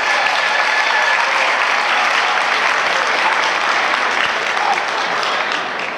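Crowd applauding a dog's just-finished agility run, a dense, steady clapping that eases off slightly near the end.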